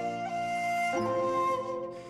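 Slow instrumental background music with held melody notes over a sustained lower accompaniment; the notes change about a second in and the music grows quieter near the end.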